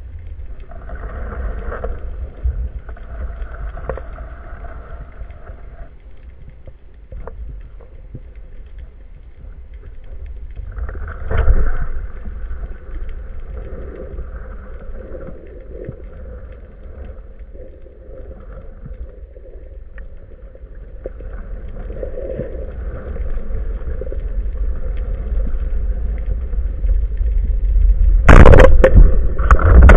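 Muffled underwater water noise with a steady low rumble, swelling briefly about eleven seconds in and growing much louder near the end.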